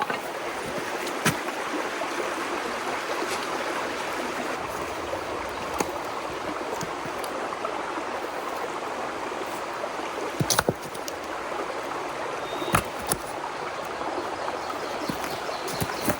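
A stream running steadily, with a few brief clicks and knocks.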